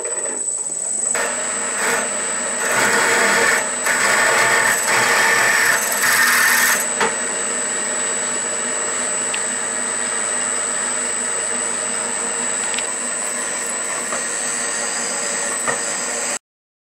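Drill press running with a drill bit counterboring a screw hole in a cold-rolled steel jaw plate, over a steady high whine. The cutting noise is loudest for the first several seconds, then the press runs on steadily until the sound cuts off suddenly near the end.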